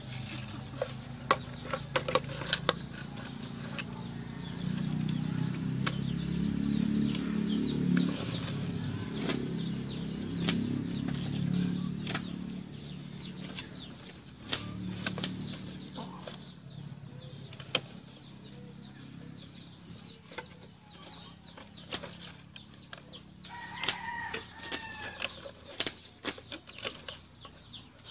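Scattered sharp clicks and knocks of hands working plastic and tools, with a low rumble through the first half. Chickens cluck in the background, one short call standing out about three-quarters of the way in.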